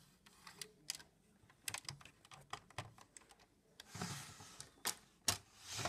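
Light, irregular clicks and taps of small plastic toy pieces and a figure being handled in a plastic playset, with a brief rustle about four seconds in and a few louder taps near the end.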